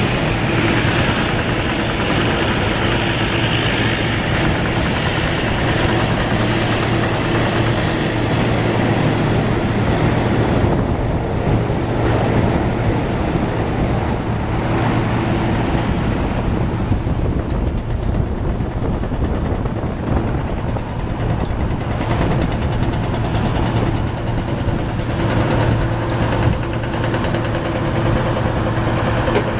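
Boeing 737-900ER's CFM56 jet engines on the landing rollout: a rushing jet noise, strongest in the first ten seconds or so, then thinning out, over a steady low hum.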